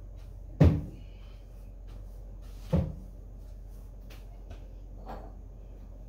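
Two heavy thumps about two seconds apart, the first the louder, then a much fainter knock near the end, over a steady low hum.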